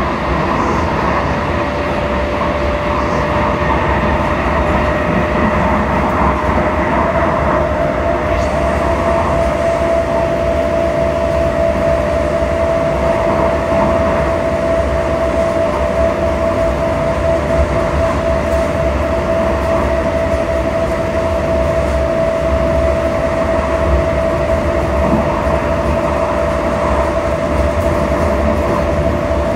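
Siemens light rail car running along the track, heard from inside the passenger car: a steady rumble and rolling noise with a steady whine that steps up slightly in pitch about seven seconds in.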